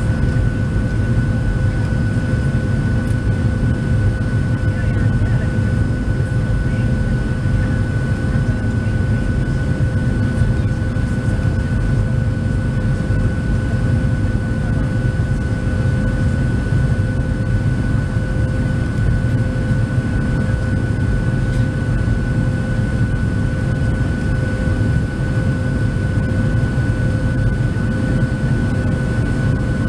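Boeing 737-700 cabin noise in flight: a steady, even rumble of engines and airflow, heard from inside the cabin, with a steady high whine from the CFM56 turbofans on top.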